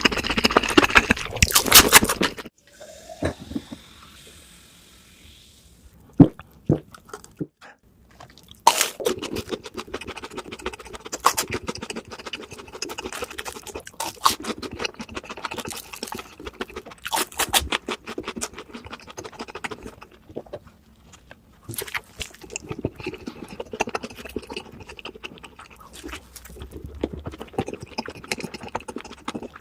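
Close-up crunching and chewing of crispy fried fast food, a dense crackle of bites and chews. Loud for the first two seconds or so, then a quieter stretch with a few sharp clicks, and from about eight seconds in steady crunching chewing again.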